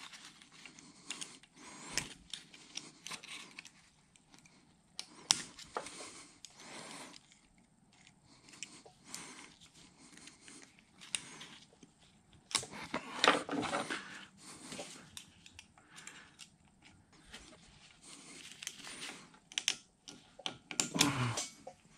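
Small irregular metal clicks and scrapes of a steel pick working a snap ring off the quill pinion shaft of a Bridgeport mill's quill housing, the ring being pried out and destroyed. Heavy breathing close to the microphone comes and goes, loudest about two-thirds of the way through.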